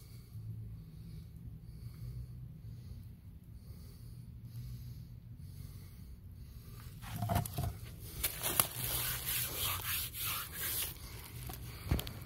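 Rubbing and rustling handling noise on a handheld phone's microphone. At first it is a low hum with faint rustles, then from about seven seconds in it turns to louder scratchy scraping and rustling, with a sharp click near the end.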